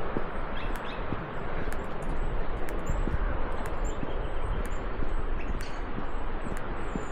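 Small birds chirping, short high calls repeating every second or so, over a steady rushing noise of wind or falling water.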